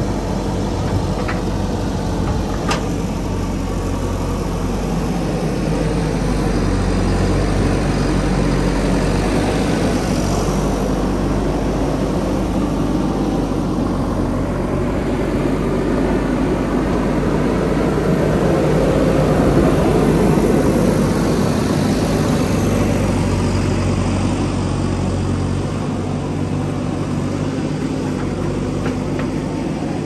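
JCB 3DX backhoe loader's diesel engine running steadily, getting louder for a few seconds about two-thirds of the way through.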